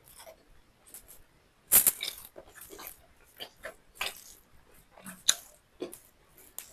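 Close-miked mouth sounds of eating beef liver and rice: wet chewing and lip smacks, an irregular string of short clicks and smacks, the loudest about two seconds in.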